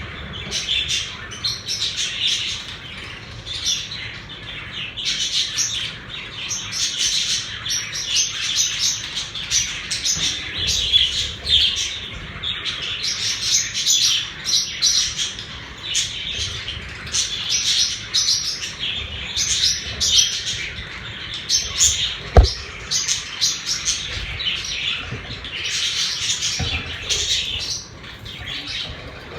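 A room of pet budgerigars chattering and chirping continuously, many short warbling calls overlapping. A single sharp knock, the loudest moment, comes about two-thirds of the way through.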